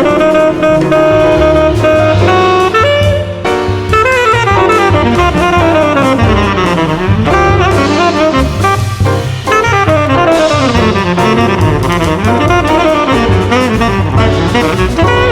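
Jazz instrumental: a saxophone plays fast rising and falling runs over a drum kit.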